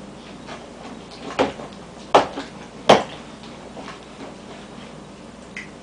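Three sharp knocks, the last two the loudest, about three-quarters of a second apart: a toddler's plastic cup knocking against a plastic high-chair tray.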